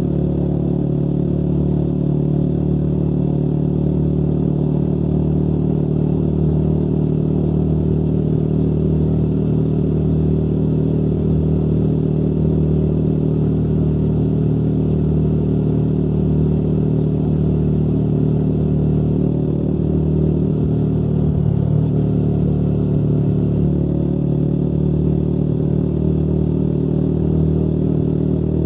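Motorcycle engine running at a steady cruising note while riding, with a brief change in pitch about three-quarters of the way through.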